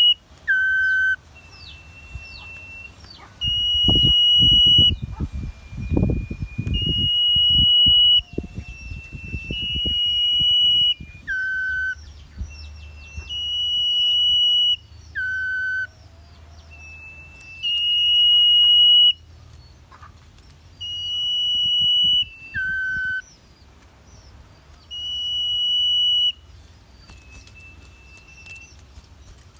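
Caged songbird singing a repeated phrase: a long, steady, high whistle of about a second and a half every three seconds or so, several of them followed by a short lower note. A run of low knocks and rustling comes about four to seven seconds in.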